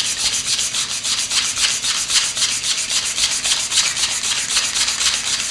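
A wooden workpiece rubbed by hand, back and forth, on a sheet of 180-grit sandpaper laid flat on a table. It makes a steady, evenly repeating rasp of fast strokes.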